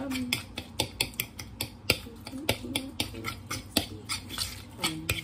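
A kitchen utensil mashing soft cooked sweet potato in a bowl, clicking and scraping against the bowl several times a second in an uneven rhythm.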